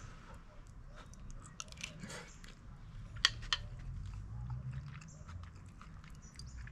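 A person chewing a mouthful of soft tuna mornay and mashed potato, with many small wet mouth clicks and two sharper clicks about three seconds in.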